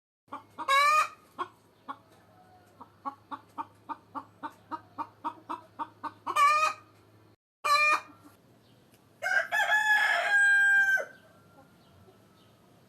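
Hens clucking in a quick run of short clucks, about three a second, broken by loud cackling squawks, then a rooster crowing once, for about two seconds, near the end.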